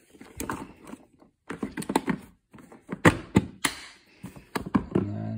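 Hard plastic storage boxes knocking and clicking together as they are handled and lifted out of a plastic crate, a string of sharp knocks with the loudest about three seconds in.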